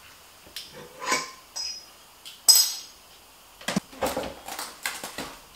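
Light clinks and taps of glass and metal as a flush-mount ceiling light fixture is handled and taken apart. A few clinks ring briefly, the loudest about two and a half seconds in, and a quick run of taps comes near the end.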